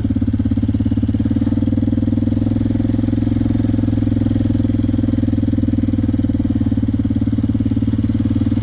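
Small gasoline engine of a child-driven farm vehicle running steadily at an even idle, with a rapid low pulse and no revving.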